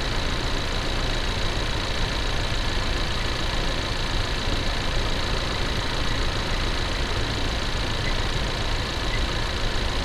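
2019 Ford Ranger's 2.3-litre EcoBoost four-cylinder engine idling steadily, heard close under the open hood, with a faint steady high-pitched tone over the running. The engine is running normally.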